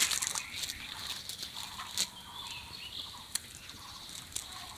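Wet cast net being hauled out of the water onto a muddy bank: a splash at the start, then water dripping and scattered slaps as the net and caught fish hit the ground. Faint bird calls sound in the background.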